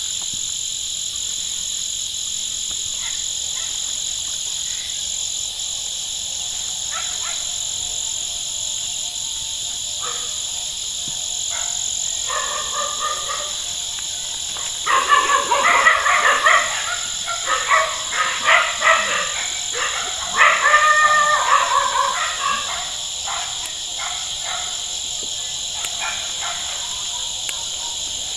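Frogs croaking over a steady high-pitched insect chorus. The croaking comes in irregular calls and is loudest and densest for several seconds just past the middle.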